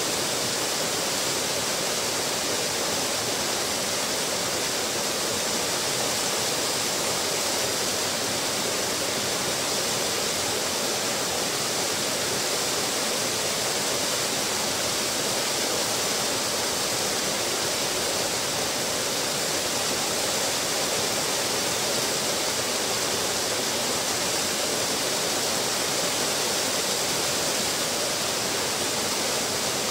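Small waterfall pouring over a ledge and splashing into a pool below: a steady, unchanging rush of falling water.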